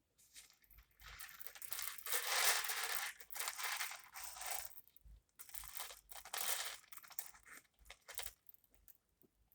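A handful of small beads clattering and rustling together as they are handled, in two long spells with a short pause between them about five seconds in.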